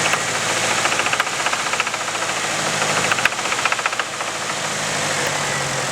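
Nissan KA24DE 2.4-litre four-cylinder engine running with a fast, rhythmic rod knock over its steady hum, the sign of a damaged rod bearing that the owner puts down to oil starvation from an unnoticed oil leak.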